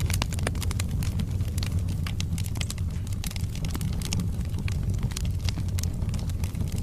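Wood fire burning in a fireplace: a steady low rumble of the flames with frequent irregular crackles and pops from the burning logs.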